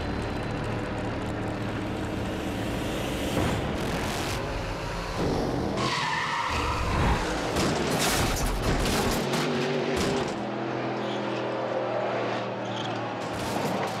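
Drag race cars running at full throttle down a slick, dusty strip, with tyres skidding and squealing. Then a crash into the concrete wall, with sudden crunching and scraping impacts.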